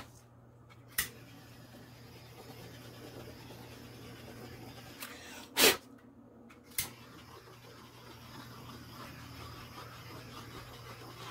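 Faint steady hiss over a low hum from a heat tool passed over a wet acrylic pour, with four sharp clicks, the loudest about halfway through.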